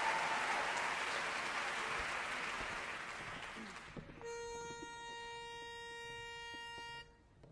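Audience applause dying away. Then, about four seconds in, a pitch pipe sounds a single steady reed note for about three seconds and cuts off: the quartet taking its starting pitch for the next song.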